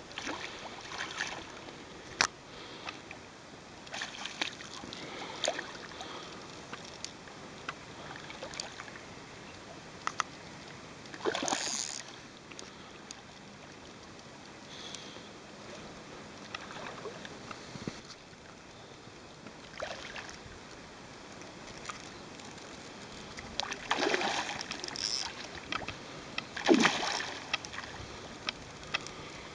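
A hooked carp thrashing at the water's surface while being played on a fly rod: irregular splashes, the biggest about eleven seconds in and twice near the end.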